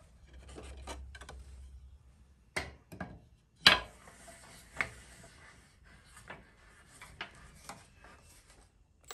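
Wooden boards rubbing and rattling as a strip is pulled from a lumber rack, then a few sharp wooden knocks as it is set on a folding workbench, the loudest about a third of the way in. Light clicks follow as the workbench's crank clamps are turned to grip it.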